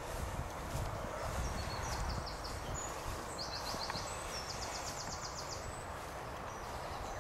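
Footsteps walking through grass with a low rumble on the microphone, while a songbird sings several short, rapid trills in the background, the clearest between about three and six seconds in.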